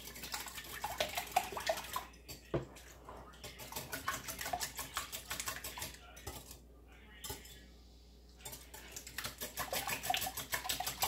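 Wire whisk beating liquid egg, milk and oil in a glass batter bowl: rapid clicking and clattering of the wires against the glass, with a brief pause a little past the middle.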